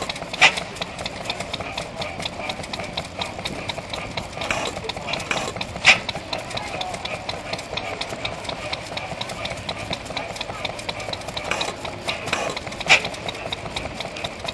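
Large vintage horizontal stationary engine with twin flywheels running slowly: a steady mechanical clicking, about four a second, with three much louder sharp bangs spaced several seconds apart.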